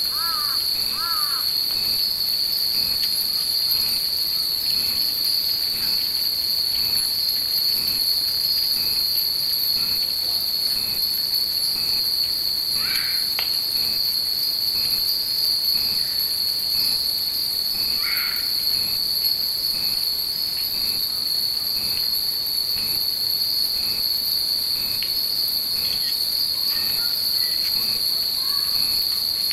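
Japanese fūrin wind chimes hanging in a tree tinkle now and then over a steady, loud cicada chorus. A crow caws a few times in the first second or so.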